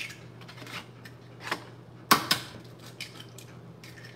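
Raw eggs being cracked on a pan and their shells broken open by hand: a series of short, sharp cracks and clicks, the loudest a close pair about two seconds in.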